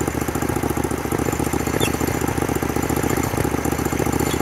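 Small petrol engine of a portable bandsaw sawmill idling steadily, with the saw head at rest and not cutting.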